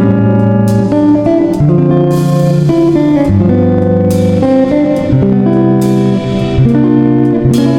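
Background music: guitar-led instrumental with sustained notes and a steady beat.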